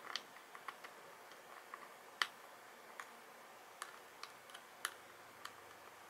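Faint, irregular small clicks and taps of a metal screwdriver tip and a tiny screw against a hard plastic toy body as the screw is being fitted, the sharpest about two seconds in and again near five seconds.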